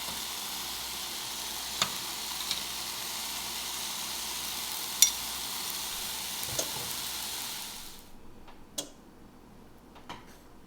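Vegan meatballs sizzling in vegetable broth in a hot non-stick frying pan, a steady sizzle broken by a few sharp clicks, the loudest about five seconds in. The sizzle cuts off suddenly about eight seconds in, leaving only a few faint clicks.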